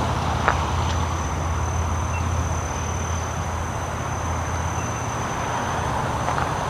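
Steady low rumble of road traffic with a thin, steady high-pitched insect drone above it.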